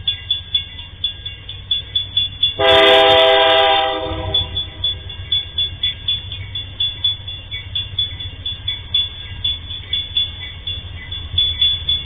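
MRS Logística freight train's diesel locomotive sounding one horn blast of several notes at once, lasting about a second and a half, starting roughly two and a half seconds in, over the low rumble of the approaching locomotive. A rapid, regular ticking runs underneath.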